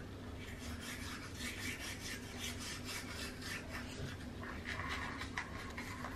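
Toothbrush scrubbing a child's teeth in quick, repeated back-and-forth strokes, a soft scratchy rasping.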